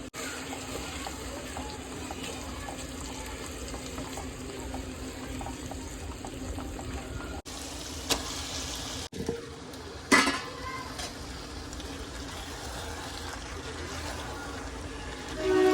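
Biryani cooking sounds: a steady hiss from the pot or pan, with two sharp clinks of a utensil about eight and ten seconds in.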